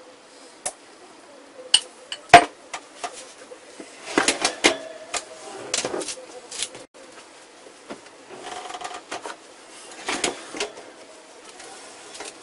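Scattered metal clinks and knocks of a wire oven rack and oven door being handled, the loudest a sharp knock about two seconds in, with further bursts of clatter in the middle and toward the end.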